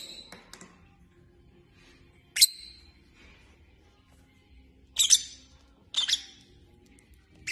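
Lovebirds giving short, sharp, high-pitched chirps, single or in quick pairs, a few seconds apart.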